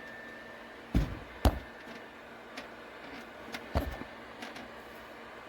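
Three dull knocks, two close together near the start and one later, over a faint steady electrical hum.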